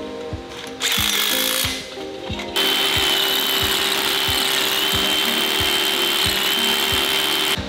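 Rotary hammer drill boring into a concrete floor while a shop vacuum runs at the hole, a loud steady noise with a high whine that starts about two and a half seconds in and cuts off suddenly near the end. About a second in there is a shorter burst of power-tool noise. Background music with a steady beat plays throughout.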